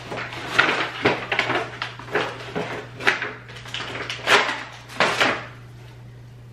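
Clattering and rustling as bath-salt jars are handled and one jar's lid is taken off: a string of irregular clicks, knocks and scrapes that stops a little after five seconds in.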